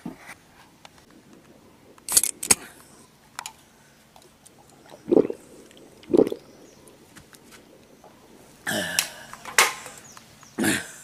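A drink can cracked open with a sharp pull-tab pop and fizz about two seconds in, then gulps as it is drunk, and near the end a few loud splutters and coughs.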